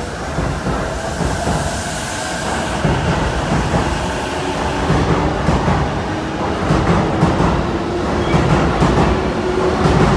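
Keihin-Tohoku Line E233-series electric commuter train pulling out and picking up speed past the platform, its wheels clacking over the rail joints. A motor whine rises slowly in pitch, and the sound grows louder toward the end.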